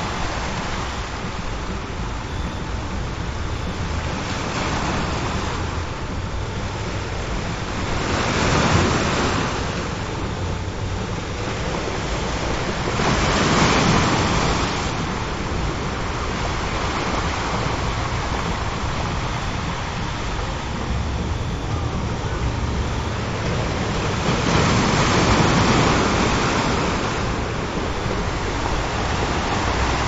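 Ocean surf: a steady wash of waves on a shore, swelling three times as larger waves break.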